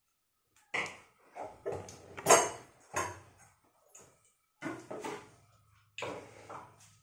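Kitchen handling: a run of irregular knocks and clatters in three bunches, around oil being poured from a plastic bottle into an aluminium kadai on a gas stove.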